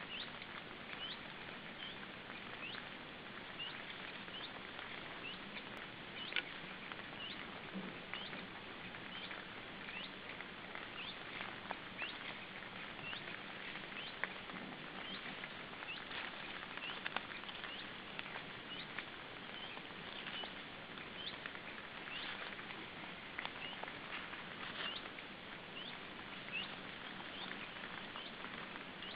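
Steady hiss with many short, high chirps at irregular spacing, about one or two a second, and scattered light ticks.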